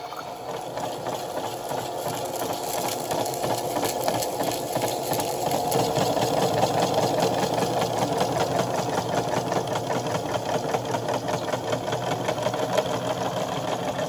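The small electric motor of a Kid Connection toy washing machine is running its wash drum, with a steady whir and a fast, even rattle. It grows louder over the first few seconds, then holds steady.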